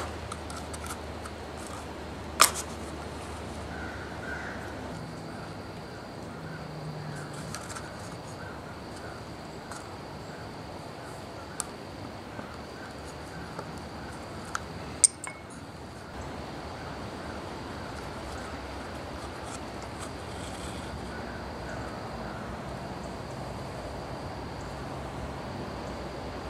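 Steady low hiss with a few sharp clicks from steel needles being worked through a leather sheath during hand-stitching, the two loudest about two seconds in and about fifteen seconds in.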